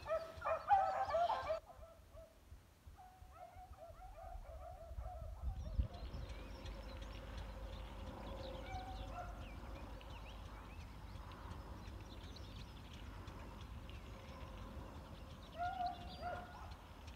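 Hunting beagles baying on a scent trail: a burst of overlapping bays at the start, fainter bays a few seconds in, and more near the end. Between them is a steady rustling hiss, with a thump about six seconds in.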